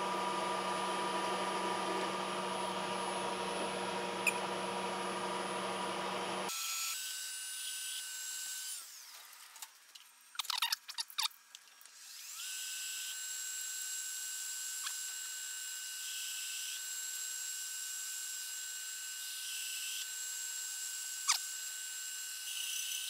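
Milling machine spindle running a countersink cutter into a metal bar, a steady machine whine with several steady tones. About nine seconds in the spindle winds down, a few short knocks follow, and it spins back up and runs steadily.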